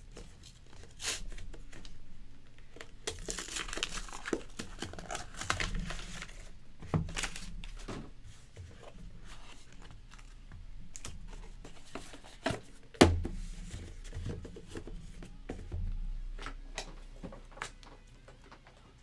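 Cardboard trading-card hobby box being torn open and handled: crinkling and tearing of cardboard and wrapping, with scattered clicks and a sharp knock about thirteen seconds in.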